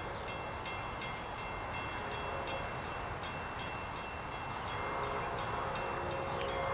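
Railroad grade-crossing bell ringing steadily, about three strokes a second, the warning that a train is approaching.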